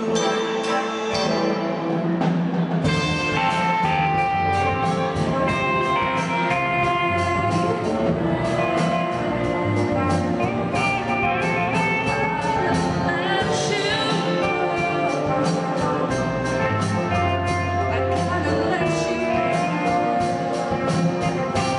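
Live rock band playing: drum kit, electric guitars and bass under a singer's voice. The drums and bass come in about three seconds in, with a steady beat from then on.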